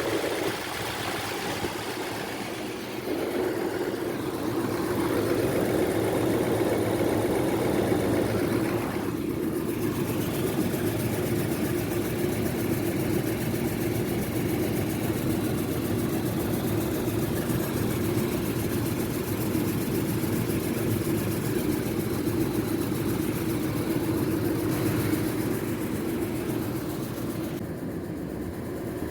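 2007 Nissan Armada's 5.6-litre V8 running with a steady droning tone, with a slight dip about two seconds in; this is the loud whining noise the owner says comes on and grows under acceleration and stops off the gas.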